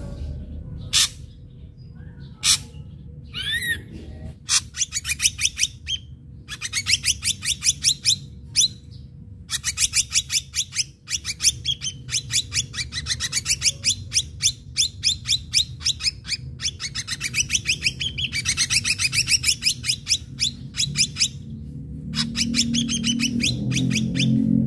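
Ashy drongo singing: a few sharp single clicks, then long, fast runs of rapidly repeated notes broken by short pauses.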